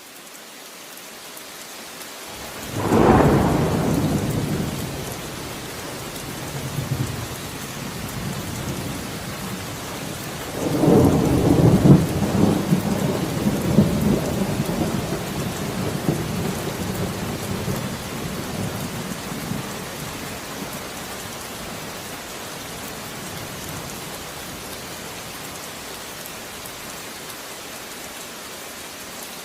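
Steady rain with thunder: a sudden clap about three seconds in that fades, then a longer rolling rumble from about eleven seconds in that dies away slowly while the rain hiss continues.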